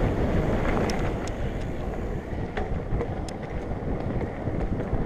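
Wind buffeting the microphone over the steady rumble of an off-road vehicle riding a dirt trail, with a few short knocks and rattles.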